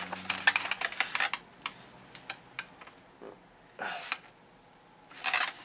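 Light clicks and knocks from a boxed die-cast model car and its white display base being handled and turned over. They come thick in the first second or so, then sparser.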